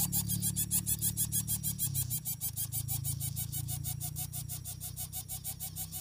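Lesser coucal nestling begging as it is fed, a fast, even train of squeaky pulses over a low steady hum.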